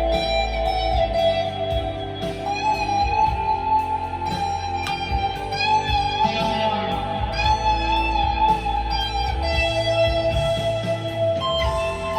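Squier Classic Vibe Telecaster electric guitar played through a Blackstar V2 amp with its modulation effect on, picking a slow line of held notes in A minor. The held notes waver in pitch.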